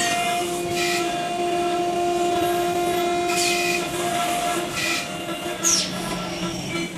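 CNC turret drilling and tapping machine running: a steady spindle and motor whine, broken by short hissing bursts about a second in, midway and near the end.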